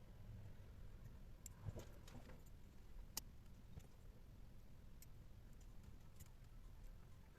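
Near silence with a few faint, sharp clicks scattered through it.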